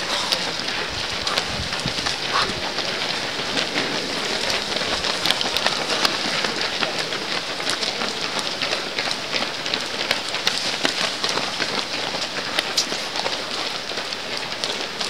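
Footsteps of a stream of marathon runners on stone paving: many overlapping footfalls making a dense run of short slaps and clicks.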